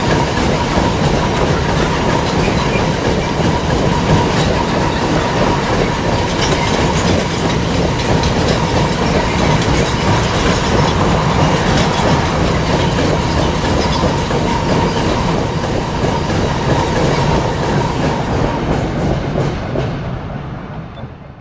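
Intermodal freight train's wagons, loaded with trailers and containers, rolling steadily past on the rails. The sound dies away near the end as the last wagons clear the line.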